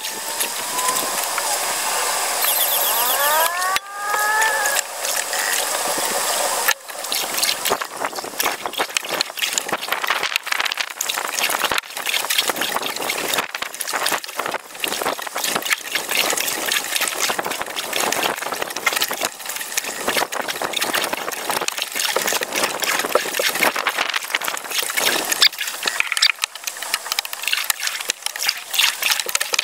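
Canoe paddle working the water, heard as dense, irregular crackling and clicking of splashes and drips over a hiss. A few short rising and falling whistles sound in the first few seconds.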